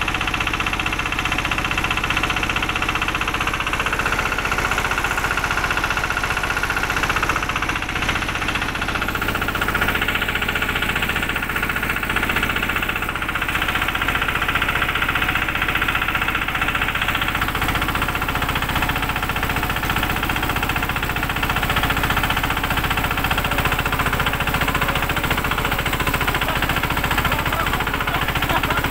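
Vehicle engine running steadily under load as it climbs a dirt road, a continuous even drone.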